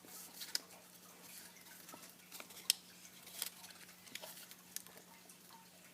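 Square origami paper rustling and crinkling as it is folded and creased by hand: a scatter of faint crisp clicks and crackles, the sharpest about two and a half seconds in.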